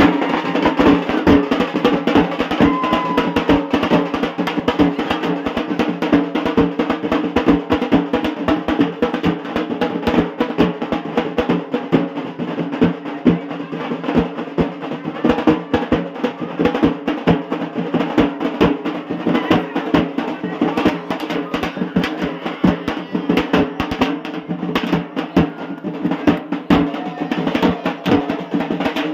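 Rapid, continuous drumming on a large barrel drum and round frame drums beaten with sticks, an unbroken dense roll of strikes.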